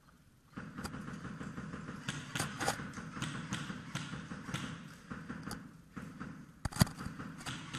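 Airsoft skirmish: a scatter of sharp clicks and pops from airsoft guns firing, starting abruptly about half a second in, with one loud crack near the end.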